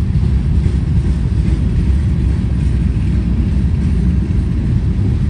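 Freight train of covered hopper cars rolling past: the steady low rumble of steel wheels on the rails.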